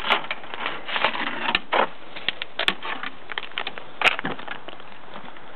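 Irregular rustling and crackling of dry straw and twigs being stirred. It is busy for the first couple of seconds, then thins to scattered single clicks.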